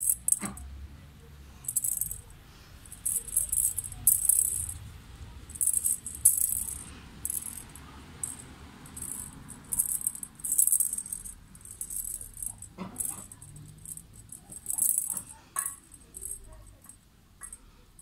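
Plastic cat toy ball with a rattle inside jingling in short, irregular bursts as a kitten bats and paws at it.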